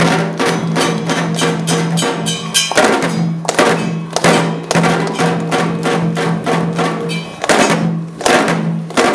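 Atabaque hand drums playing a fast, dense rhythm of strikes, with a steady low tone running under them.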